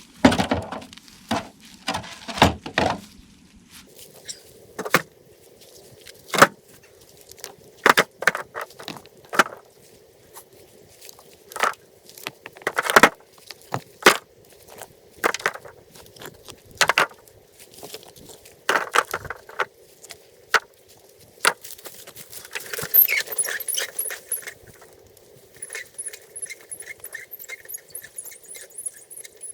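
A series of sharp, irregular strikes, roughly one every second or two, over a steady hum. Near the end a fast, repeated high chirping starts.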